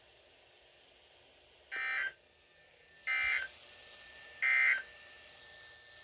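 Three short bursts of NOAA Weather Radio SAME digital data tones, a raspy two-tone warble heard through a weather radio's speaker, about a second and a half apart. Their shortness marks them as the end-of-message (NNNN) code that closes the Required Weekly Test.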